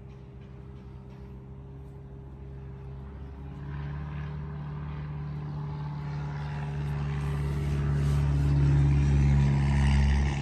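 Steady engine drone with a low hum, building gradually louder and loudest near the end, as of a motor vehicle or aircraft coming closer.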